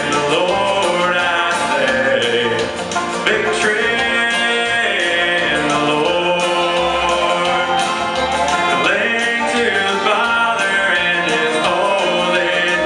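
Teenage boy singing a country song into a handheld microphone, amplified, over country instrumental accompaniment.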